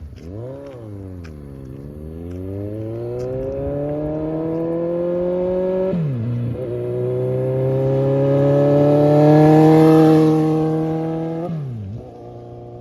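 Suzuki Bandit 1250's inline-four engine under hard acceleration. It revs briefly, then pulls with a steadily rising pitch, shifts up about six seconds in, and climbs again, loudest around ten seconds in. Near the end the revs drop sharply to a lower steady note.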